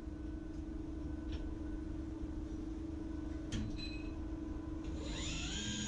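Okuma ARMROID robot arm moving inside the LB3000 EX II lathe: a steady machine hum over a low rumble, with a few sharp clicks. Near the end a motor whine rises and falls in pitch as the arm's drives speed up and slow down.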